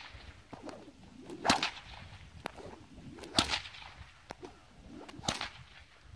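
Stock whip cracking three times, about two seconds apart, each a sharp crack.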